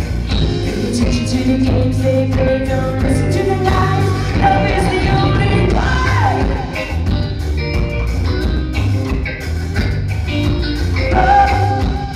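Live band playing loudly: a woman singing lead over electric guitar, bass guitar and drum kit.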